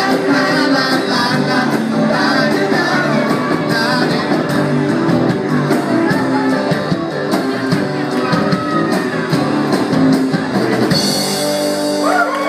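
Live rock-and-roll band playing through PA speakers: a man singing over strummed acoustic guitars and a drum kit. Near the end a bright, noisy wash comes in as the song winds down.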